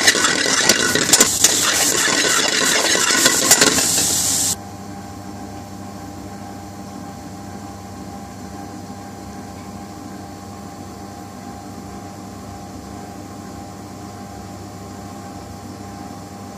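Mushrooms frying in a metal pan, sizzling, with a metal spoon scraping and clacking against the pan as they are stirred. About four and a half seconds in this cuts off abruptly, leaving a steady fan-like hum.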